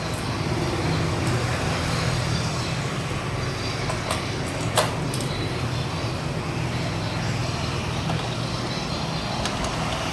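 Steady road traffic noise, with a sharp click a little under five seconds in.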